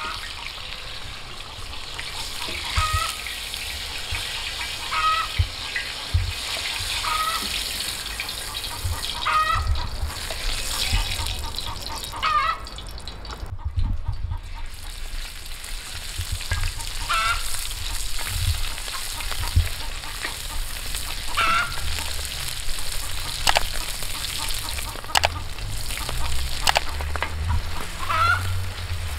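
Domestic fowl calling again and again in short squawks, roughly every two seconds. In the second half, minced meat and onion sizzle in a large shallow iron pan, stirred with a wooden spatula, with a few sharp taps.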